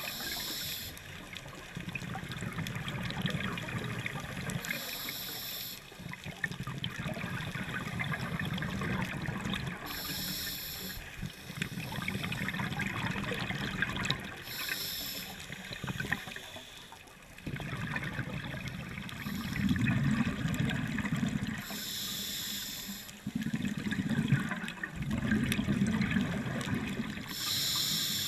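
Scuba regulator breathing heard underwater: a short hiss roughly every five seconds, with the low bubbling rumble of exhaled air in between.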